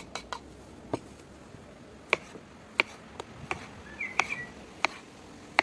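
Knife slicing through peeled raw potato and knocking on a wooden cutting board: about seven sharp chops, roughly one every three-quarters of a second. A bird chirps briefly about four seconds in.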